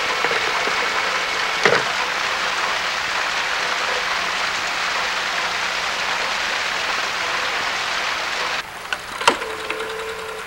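A steady, even hiss like rain that stops abruptly near the end, with a sharp click about two seconds in and another just after the hiss stops.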